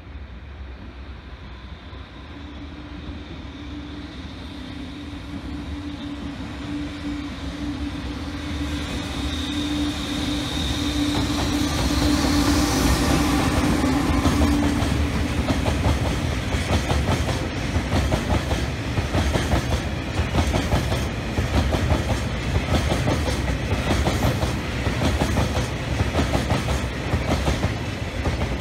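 Freight train approaching and passing. A steady humming tone grows louder over the first dozen seconds as the locomotive nears. Then a long string of oil tank wagons rolls by with a rhythmic clickety-clack of wheels over the rail joints.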